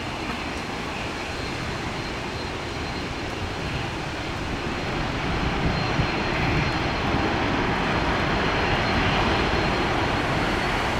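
Boeing 757 jet airliner on its landing roll, its engines in reverse thrust used only lightly; the jet noise swells about halfway through.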